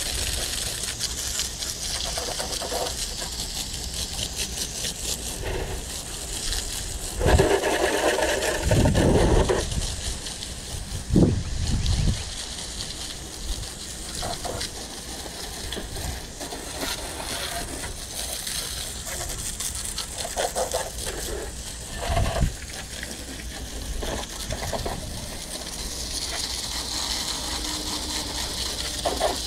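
Water from a garden-hose spray nozzle spattering onto Exmark mower decks, wheels and wet pavement, a steady hiss. A few louder low bumps break in, the loudest about a quarter to two-fifths of the way through.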